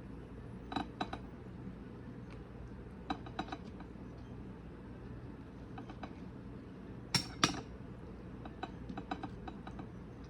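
Scattered light clinks and taps of utensils against dishes, with two louder knocks about seven seconds in.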